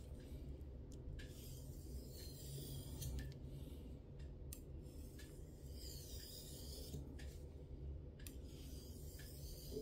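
Victorinox kitchen knife blade drawn tip to heel across an oiled natural whetstone, a series of faint scraping strokes that recur about every second or so. These are finishing-stage passes, alternating between the right and left sides of the edge.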